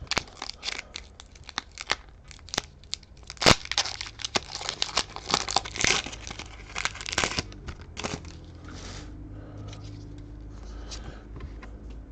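Foil wrapper of a Pokémon trading-card booster pack being torn open and crinkled in the hands, in a run of irregular crackles and sharp rips that stops about eight seconds in.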